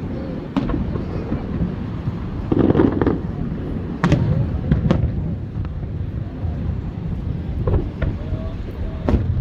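Aerial fireworks shells bursting with sharp bangs: one about half a second in, two around four and five seconds in, and one near the end. Between them runs a steady low rumble of the display.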